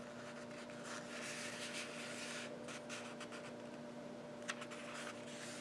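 Faint rustling and soft scraping of a sheet of lined notebook paper being folded and slid on a cutting mat, with a few light ticks, over a steady low hum.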